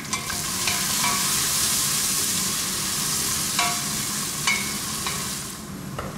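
Finely chopped onions sizzling in hot pork lard in a stainless-steel pressure cooker, stirred with a wooden spoon that clicks and scrapes against the pot several times. The sizzling dies down near the end.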